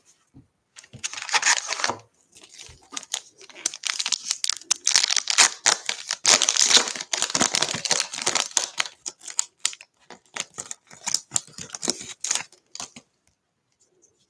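A trading-card pack's foil wrapper being torn open and crinkled by hand, in dense crackling bursts that stop about a second before the end.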